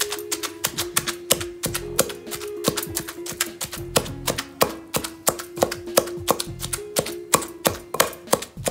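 Long wooden pestle pounding green chillies, cumin and coriander in a stone mortar: rapid, uneven knocks about three to four a second, over background music.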